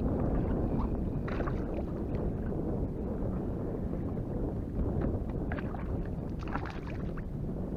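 Wind rumbling on the microphone aboard a kayak on the water, with a few brief splashy bursts about a second in and again near the end.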